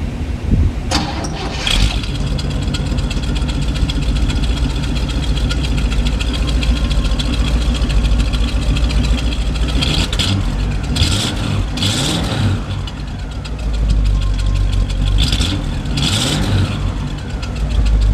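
1957 Cadillac Series 62's 365 cu in overhead-valve V8 running through its exhaust, heard from behind the car: a steady idle broken by short throttle blips, two about a second in, three in a row around the middle and two more near the end, the revs falling back to idle after each.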